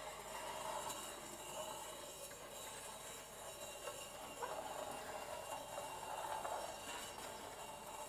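Faint clinking and scraping from wine glasses played as sound objects, with a few faint steady high tones ringing under it.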